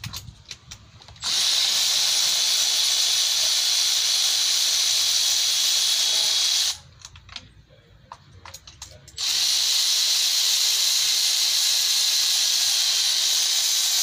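Power ratchet running in two steady, high-pitched runs of about five seconds each, unscrewing spark plugs. The first starts about a second in and stops abruptly; the second starts a couple of seconds later, with a few light clicks of handling in between.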